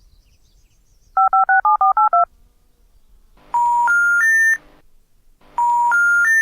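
Touch-tone telephone keypad dialing seven digits, seven short two-tone beeps, followed twice by the three rising notes of the special information tone, the telephone network's sign that the call cannot be completed, such as a number not in service.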